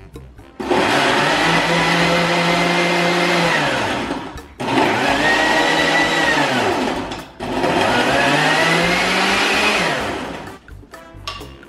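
Countertop blender blending a smoothie in three runs of about three seconds each, with short breaks between them. At the end of each run the motor winds down and its pitch falls.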